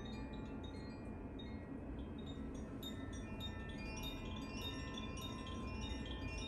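Carillon chimes being played: many bright ringing notes struck one after another and overlapping as they ring on, over a steady low background rumble.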